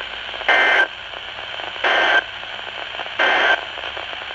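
Three short bursts of Emergency Alert System digital data tones, the buzzing end-of-message signal that closes a warning broadcast on NOAA Weather Radio, about a second apart over steady radio hiss.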